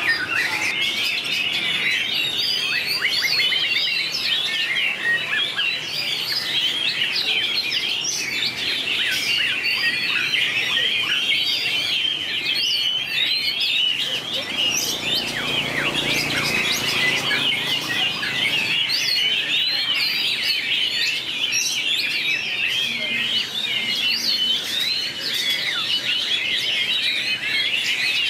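White-rumped shama song: a dense, unbroken run of rapid, varied whistles, trills and chattering notes, high-pitched and continuous throughout.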